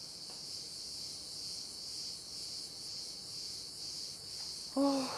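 Steady high chirring of an insect chorus, like crickets, with a slight even pulse. Near the end a brief pitched sound, louder than the chirring, cuts in.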